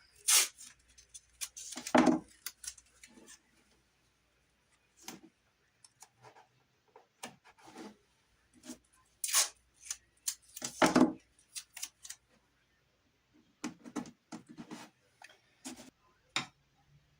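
Irregular clicks, taps and rubbing noises, with louder knocks about 2, 9 and 11 seconds in.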